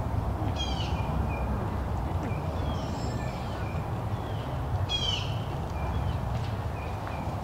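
Birds chirping repeatedly, with two louder descending calls about half a second and five seconds in, over a steady low rumble.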